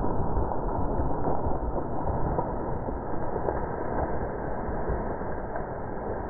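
Dull, muffled rumbling noise, strongest in the low range and slowly easing off, with no gunshot.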